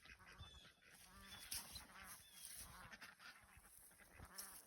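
Geese honking faintly: several short calls.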